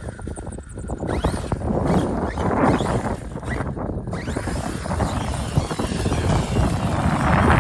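ARRMA Fireteam 6S RC car's brushless motor whining up in pitch again and again as it is throttled hard, over the noise of the car running across the ground.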